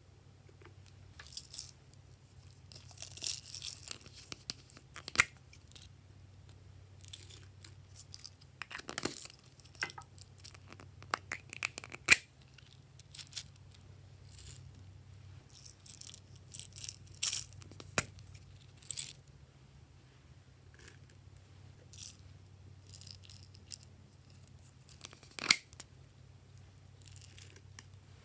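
Toppings such as glitter, sequins and small clay pieces being tipped from small plastic containers and scattered onto slime in a glass dish: irregular light clicks, rattles and rustles, with a few sharper taps. A faint steady low hum sits underneath.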